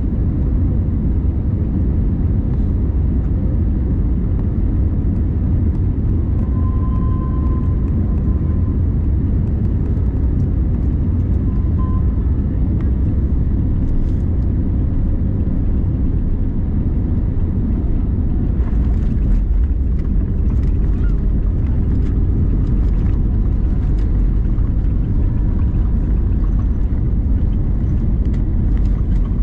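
Steady low rumble of engine and airflow noise inside the cabin of an Airbus A321neo, with faint clicks and rattles in the second half.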